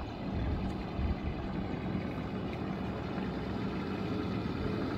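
Four-wheel-drive SUV's engine running steadily at low revs as the vehicle crawls slowly along a muddy dirt track.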